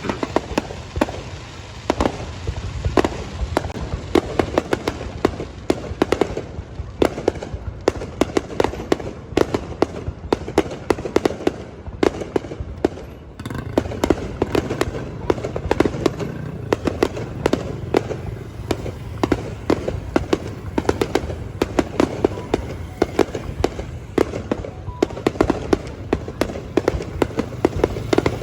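Fireworks display: aerial shells bursting in quick succession, several sharp bangs and crackles a second over a low rumble. There is a brief lull about 13 seconds in.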